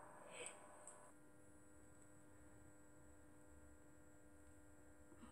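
Near silence: room tone with a faint steady electrical hum of several tones, starting about a second in.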